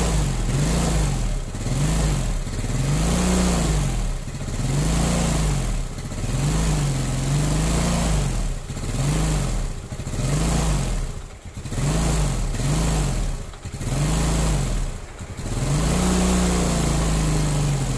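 Yamaha Mio Sporty scooter's small single-cylinder four-stroke engine running and being revved in repeated throttle blips, about one rise and fall a second, with a few brief drops in the second half. It has just come back to life after its too-tight intake and exhaust valve clearances were reset.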